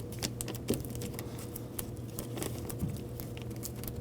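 Thin plastic door moisture barrier crinkling and ticking as it is pressed back onto its adhesive, a scatter of small irregular clicks and rustles.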